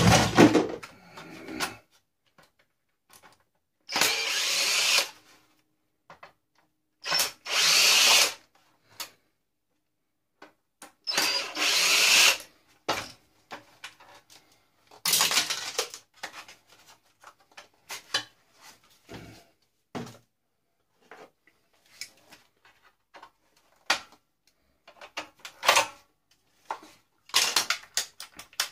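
Power drill running in short bursts of a second or so, about five times, while parts of an old tube TV are being taken apart. Between and after the bursts come scattered clicks and knocks of metal and plastic parts being handled.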